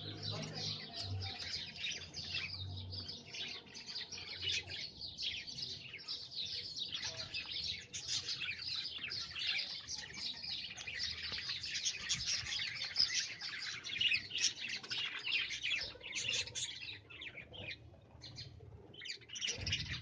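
A flock of budgerigars chattering, many rapid high chirps overlapping without a break.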